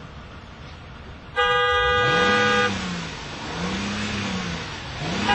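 A car horn sounds one sustained blast of just over a second, starting suddenly about a second and a half in. After it, a low tone rises and falls in pitch three times.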